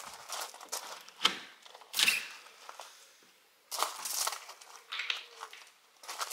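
Irregular crunching and rustling noises in short bursts, with a brief near-silent pause a little after the middle.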